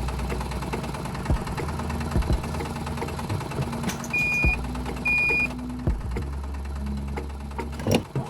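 Small motor of a DIY model tractor running steadily, with scattered clicks and knocks. Two short high beeps come about a second apart near the middle.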